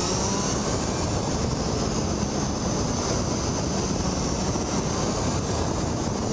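A motorcycle under way, heard from a camera mounted on the bike: a steady rush of wind over the microphone with the engine running underneath.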